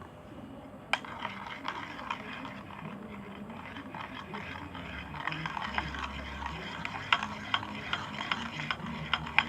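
Glue-and-borax slime being mixed, with a dense run of irregular wet clicks and crackles starting about a second in.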